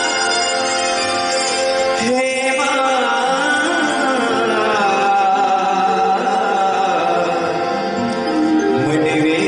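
A male singer sings a devotional bhajan in long, gliding melodic lines, accompanied by a harmonium holding steady chords.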